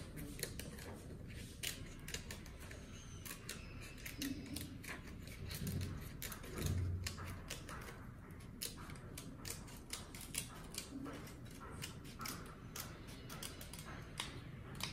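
Small scissors snipping around a thin clear plastic transparency sheet: a long irregular run of faint sharp snips and crackles of the sheet. A soft low thump near the middle.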